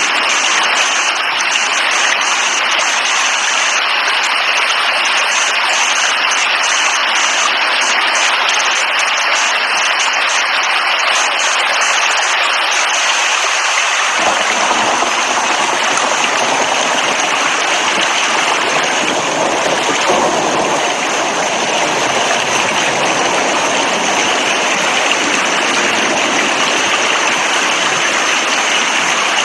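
Heavy rain falling steadily, a dense even hiss of water. About halfway through, the sound changes and gains a deeper, fuller rush.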